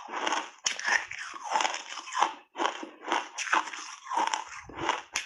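Refrozen shaved ice being bitten and chewed close to the microphone: a quick run of crisp crunches, about two to three a second.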